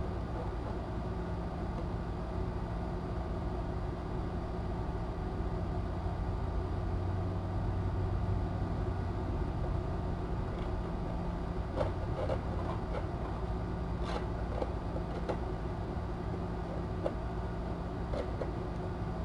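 Steady low hum and hiss of room noise. In the second half come a few faint taps and scratches as a kitten paws at a cardboard play house.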